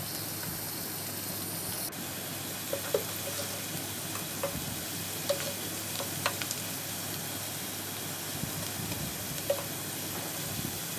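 Sliced onions, bay leaves, cardamom and cinnamon sizzling steadily in hot oil in a kadai, with a few small crackles now and then.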